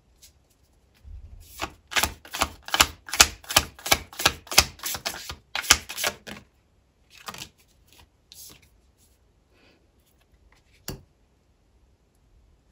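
Tarot cards being handled: a quick run of crisp card snaps, about four to five a second, lasting some five seconds. Then come a few scattered light taps and one sharp click near the end.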